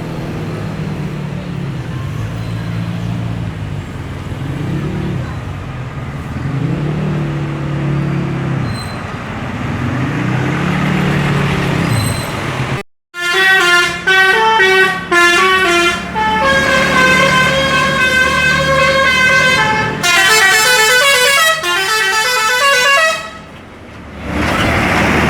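A low, steady rumble, then, after a brief cut about halfway in, the bus's telolet horn plays a loud melody of quickly stepping notes for about ten seconds. Its tune is unusual.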